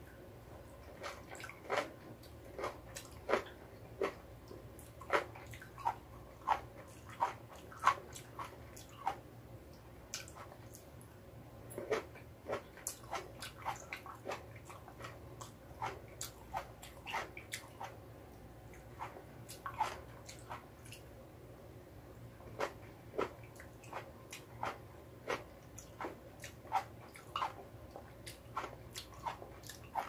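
Cherry tomatoes being chewed close to the microphone: a run of short, sharp mouth clicks, about one to two a second, with a couple of brief pauses.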